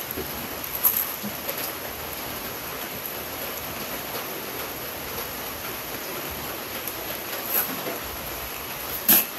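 A metal pizza peel clinking and scraping against a steel pizza oven as pizzas are moved between its decks: a few sharp clinks, the loudest near the end, over a steady rushing noise.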